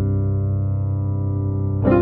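Background music on a piano-like keyboard: a held chord, with a new chord struck near the end.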